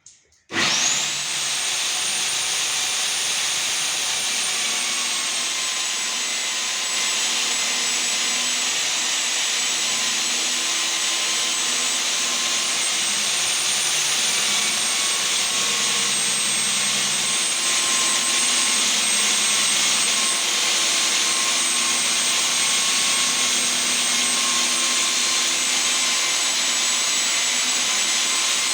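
Electric core cutting drill starting about half a second in, its motor whine rising quickly to speed and then running steadily as the core bit cuts a hole.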